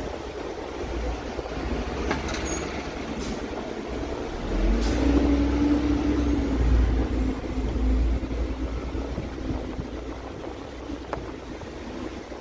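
A large diesel vehicle, most likely a city bus, running close by. Its engine note rises about four and a half seconds in, holds for a few seconds and then fades, over a steady low rumble.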